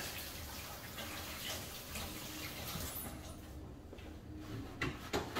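Kitchen tap running as hands are washed under it, shut off about three seconds in, followed by a couple of light knocks.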